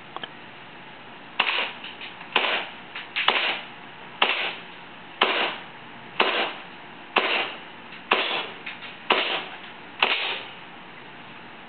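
Propane-powered gas blowback airsoft M14 rifle firing ten single shots about a second apart, each a sharp crack.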